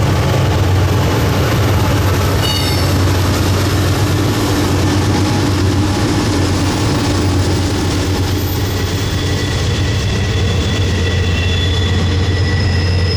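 Norfolk Southern intermodal freight train rolling past steadily, its wheels and cars making a continuous rumble over a low drone. Short high wheel squeals sound about two and a half seconds in and again near the end.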